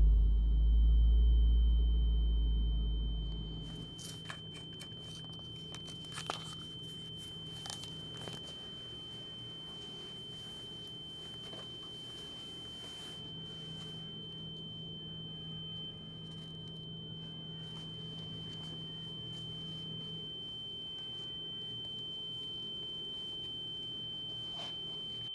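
A deep boom right at the start that fades away over about four seconds, then a steady high-pitched ringing tone, like ringing in the ears, held unbroken over a low hum.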